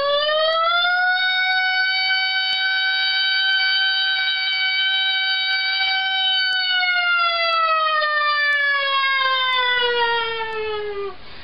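A man imitating a fire engine siren with his voice. It is one long wail that has just risen, holds high and steady for about six seconds, then slowly falls and cuts off near the end.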